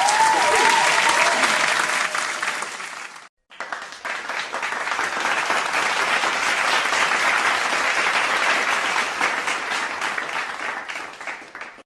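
Two crowd applause sound effects in a row. The first, with a few whistles at the start, stops about three seconds in; after a brief gap a longer round of clapping follows and fades out near the end.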